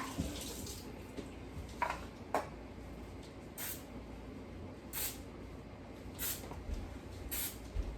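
Aerosol can of PAM baking spray giving short squirts of nonstick spray into the cups of a mini donut pan: four brief hisses about a second apart in the second half.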